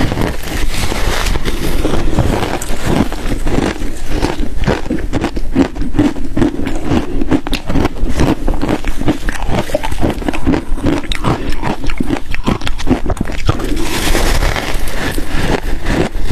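Ice dusted with matcha and milk powder being bitten and chewed close to the microphone: a dense, unbroken run of crunches and crackles.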